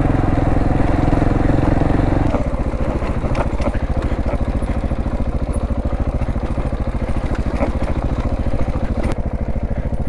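KTM enduro motorcycle engine running under throttle, then from about two seconds in dropping to a low, even chugging at low revs, with a few light knocks from the bike on a rocky trail.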